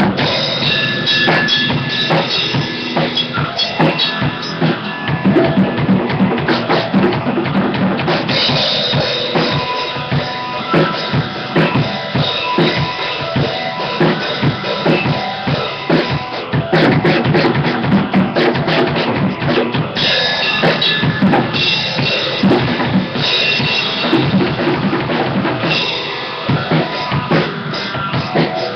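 An acoustic drum kit is played continuously, with many quick bass-drum and snare hits under ringing cymbals.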